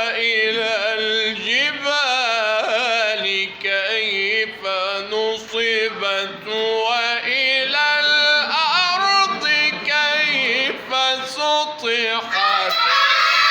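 A man's voice in melodic Quran recitation, long held notes ornamented with wavering turns of pitch. Near the end, children in the audience burst into cheering and shouting.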